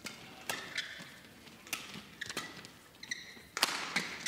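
Badminton rally: the shuttlecock struck back and forth by rackets, a quick exchange of sharp hits about every half second, with short squeaks of shoes on the court in between.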